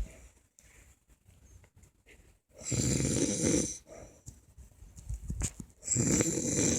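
An elderly woman snoring in her sleep: two snores about three seconds apart, each a low rattling breath lasting about a second, with quiet breathing between.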